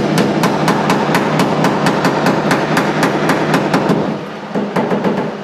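Hammer rapidly striking the sheet-metal lip of a truck's bed side to beat it in, about six or seven blows a second; the blows stop about four seconds in, then a few more follow.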